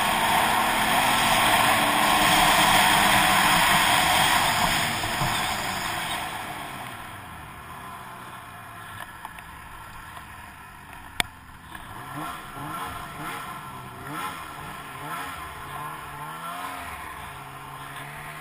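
Snowmobile engine and track running fast with a loud steady rush, which eases off about six seconds in as the sled slows. In the second half the engine revs rise and fall repeatedly at low speed, with a single sharp click about eleven seconds in.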